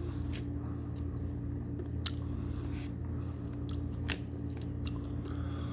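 A person chewing and biting food, with small wet mouth clicks, over a steady low hum.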